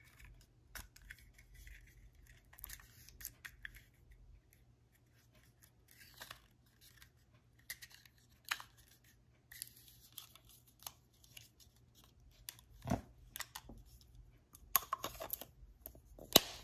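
Plastic clicks, taps and scraping from a Triple Power Push Pop candy's plastic holder being handled, its candy pops slid up and down. Faint throughout, with a sharp click about 13 seconds in and the loudest click near the end.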